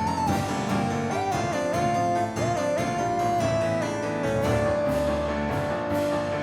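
Background instrumental music: quickly struck keyboard-like notes under a lead melody that slides from note to note.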